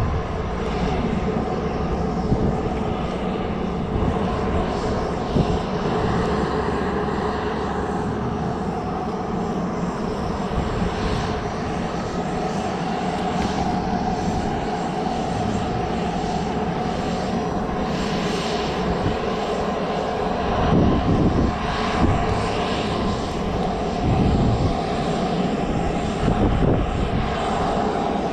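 Steady whine of jet aircraft turbines running, a constant hum with held tones over a rushing noise, and a low irregular rumble of wind on the microphone.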